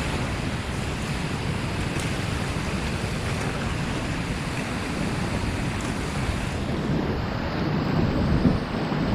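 Steady rushing of aerated whitewater in a river rapid.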